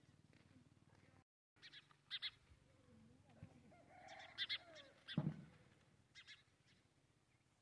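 Short high-pitched animal calls: a handful of chirps, some in quick pairs, from about two seconds in to six and a half, with one call sliding steeply down in pitch about five seconds in.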